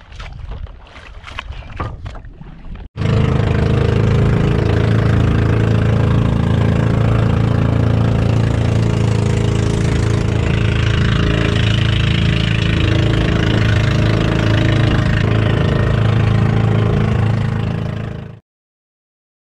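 Engine of a small outrigger fishing boat running steadily while under way, a loud, even drone. The first seconds carry only wind and water noise on the microphone, with a few clicks, before the engine cuts in; it cuts off suddenly near the end.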